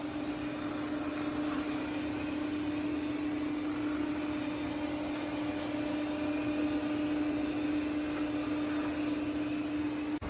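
A motor in the ECOVACS DEEBOT T50 MAX PRO Omni robot vacuum system running with a steady hum and an even mid-pitched tone.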